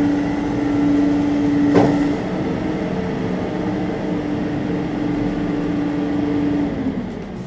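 Car-hauler truck running its loading gear as a Jeep is pulled up onto the hauler: a steady mechanical hum with one sharp clank about two seconds in. The hum stops shortly before the end.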